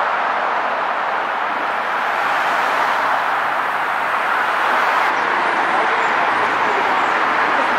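Steady road traffic noise: an even, rushing hiss with no distinct events.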